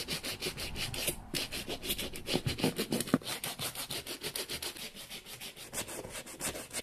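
Brass-wire suede brush scrubbing the stiff suede upper of a boot in quick back-and-forth strokes, about six a second, with a short break about a second in. This is dry, mechanical cleaning of the suede.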